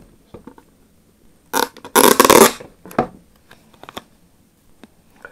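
Hands handling a cardboard card box and its paper insert: a brief rustling scrape about two seconds in, then a few light taps.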